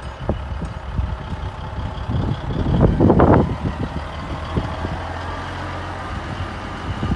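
1989 Ford L9000 semi tractor's diesel engine running as the truck drives slowly past, a steady low rumble. Wind buffets the microphone in irregular gusts, the strongest about three seconds in.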